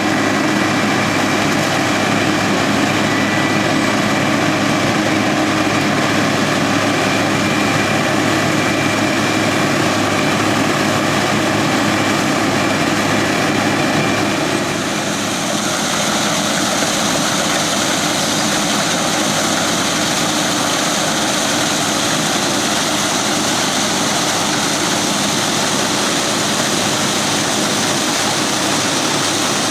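New Holland CX880 combine harvester running steadily while harvesting rice. About halfway through the sound shifts, with more high hiss added.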